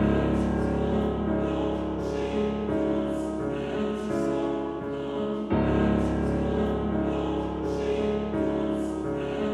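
Background music: held chords over a deep bass, starting abruptly, with a fresh swell about halfway through.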